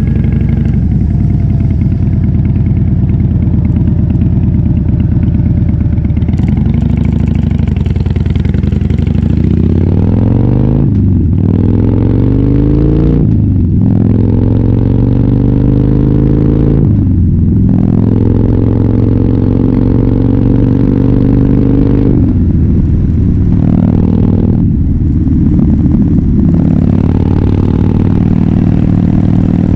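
Harley-Davidson Fat Bob V-twin running loud through a KessTech ESM3 aftermarket exhaust under way. It accelerates several times, the pitch rising through each gear and dipping briefly at each upshift, with steadier cruising in between.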